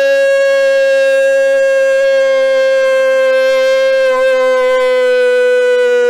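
A football commentator's long, held goal cry: one unbroken, loud 'gooool' on a single pitch that wavers slightly and sags a little lower toward the end.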